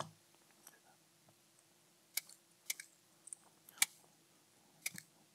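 Side cutters snipping the pins of a serial-cable socket short, one sharp click per cut, about five or six cuts from about two seconds in.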